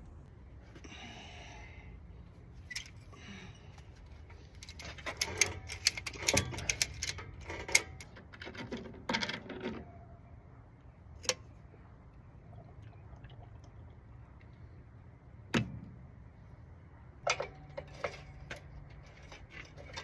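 Metal parts and hand tools clinking and clattering as they are handled: a busy stretch of rattling clinks in the middle, then a few single sharp metallic knocks spaced several seconds apart.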